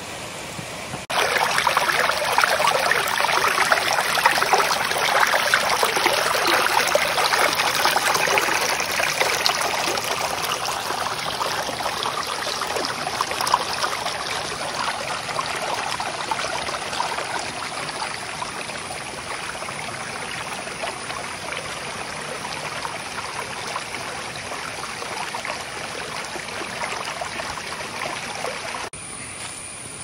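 Stream water rushing and trickling over rocks, a steady splashing hiss that starts suddenly about a second in, eases gradually through the second half, and cuts off suddenly near the end.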